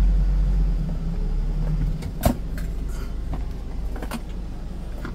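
Small pickup truck's engine running at low speed while the truck is manoeuvred, heard from inside the cab, with a steady low hum that eases a little about two seconds in. A sharp click a little over two seconds in, with a few fainter clicks after.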